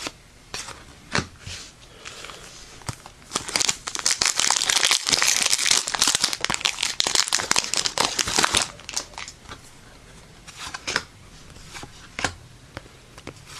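Foil Yu-Gi-Oh booster pack wrapper crinkling and tearing open for about five seconds in the middle, with a few light clicks of handling before and after.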